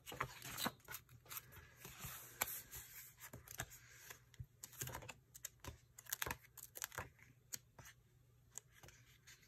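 Paper rustling and crinkling as sticker-book pages are lifted and flipped, with many small scattered clicks and taps.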